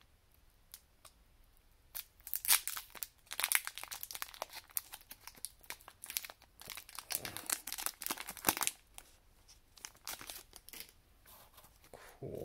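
Foil booster-pack wrapper being crinkled and torn open by hand: a run of crackling, crinkling rustles starting about two seconds in, thinning to scattered crackles near the end.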